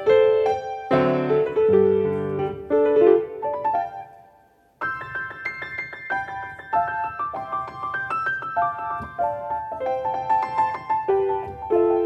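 Solo piano playing. About four seconds in, the notes die away to near silence, and less than a second later a new, brighter passage of quick notes starts abruptly.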